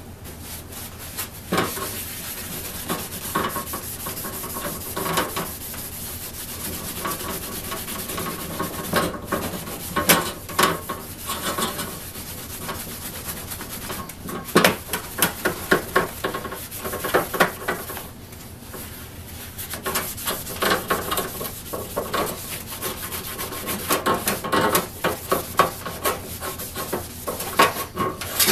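Paper towel rubbed in repeated scratchy strokes along the steel blade of a hand saw, buffing on the paste wax that guards it against rust, with a few sharp knocks in between.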